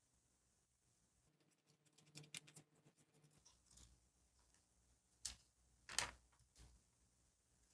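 Quiet paper and sticker handling for journal decorating: about two seconds of fine crackling, then three separate light taps a little after the middle.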